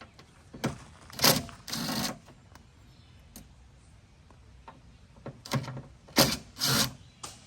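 Short clicks and rattles of a Torx driver and plastic door-panel trim being handled, in two bunches, one near the start and one later.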